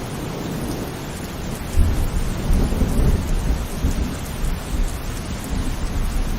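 Heavy rain falling steadily. About two seconds in, a low rumble of thunder breaks in suddenly and rolls on unevenly.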